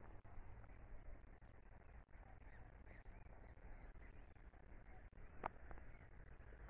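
Near silence: faint outdoor ambience with a low rumble, a few faint distant bird calls, and one sharp click near the end.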